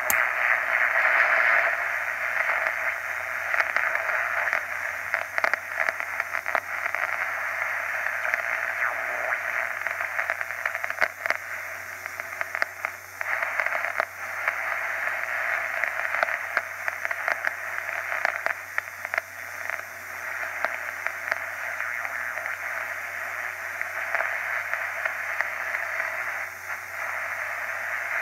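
Static from an ARC-5 command set receiver, heard through its loudspeaker: steady hiss sprinkled with crackles and clicks. The set is being tuned across the 160-metre band, where no station comes in.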